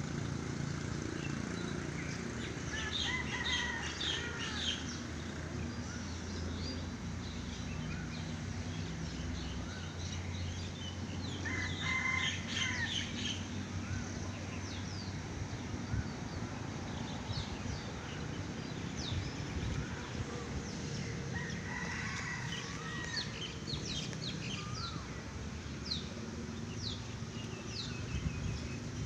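Birds calling: longer pitched calls come in three bouts, about 3, 12 and 22 seconds in, among many short high chirps. A steady low hum runs underneath.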